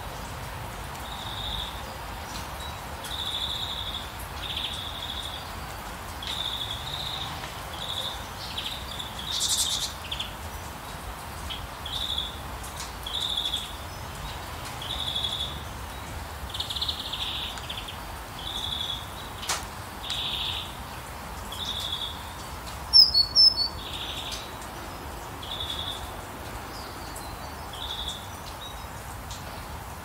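Steady rain with a songbird repeating a short, high chirp every second or two. A louder flurry of calls comes about three-quarters of the way through.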